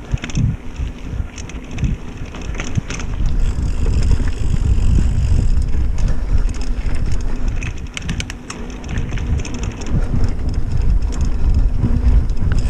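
Mountain bike riding along a dirt singletrack trail: a steady rumble and rush of the tyres on the ground and air over the microphone, with scattered rattles and ticks from the bike. The sound grows louder from about four seconds in as the speed picks up.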